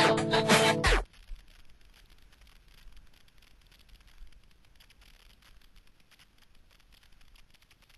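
Guitar music that cuts off suddenly about a second in. It is followed by a faint scratchy rustle of cross-country skis gliding over packed snow, muffled as heard from a helmet camera in its housing.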